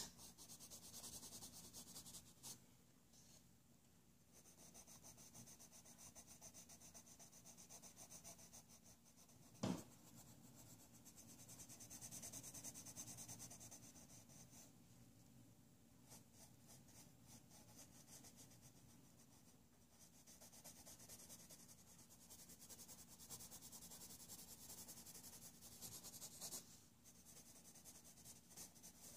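Colored pencil shading on paper: faint spells of fine scratchy strokes with short pauses between them. A single sharp tap about ten seconds in.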